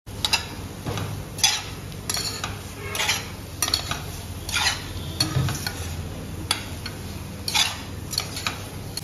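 Slotted spatula scraping and knocking against a stainless steel frying pan every second or so as potatoes in masala paste are stirred and roasted over high flame, with steady sizzling underneath.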